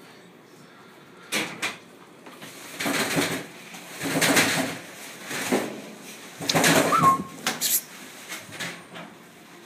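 Young kitten mewing in about five or six short cries while it is being lathered and held in the sink.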